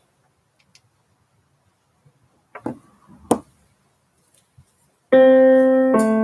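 Near silence with a few light knocks, then about five seconds in an electric keyboard sounds a held chord, changing to a second held chord just before the end, as the lead-in to a song.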